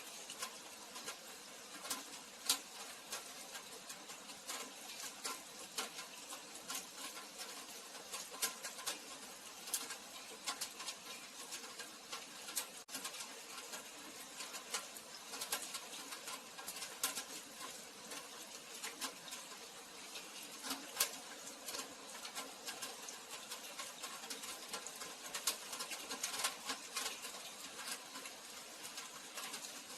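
Rain falling: a steady hiss with many irregular, close drops ticking and tapping on hard surfaces.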